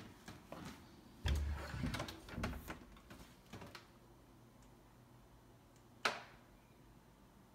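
Wooden closet door being handled and opened: a run of knocks and clicks in the first few seconds with a heavy low thump just over a second in, then a single sharp knock about six seconds in.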